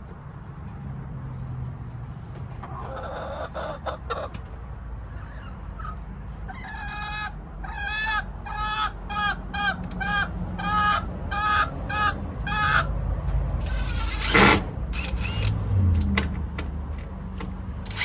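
A hen squawking loudly over and over, about a dozen calls at roughly two a second through the middle of the stretch. About fourteen and a half seconds in, a sharp knock is the loudest sound.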